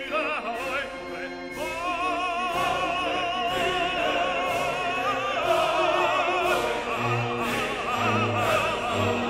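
Background music: operatic singing with a wide vibrato over orchestral accompaniment.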